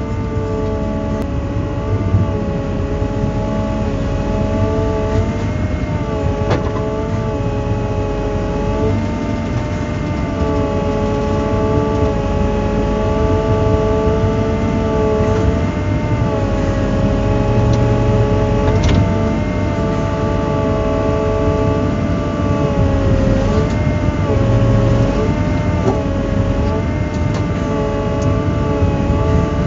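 Volvo EW160A wheeled excavator's diesel engine and hydraulics running under load, with a whine that steps up and down in pitch several times as the boom and grapple rotator are worked. A few faint knocks come through.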